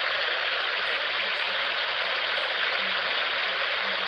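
Steady rushing of river water at a dam, heard on a field recording, with a few faint short low tones coming and going underneath.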